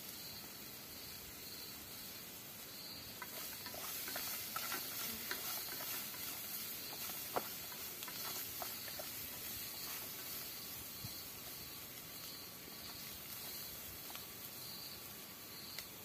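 Food grilling over an open fire: a steady sizzling hiss with scattered pops and crackles, thickest in the middle, with one sharper crack about seven seconds in.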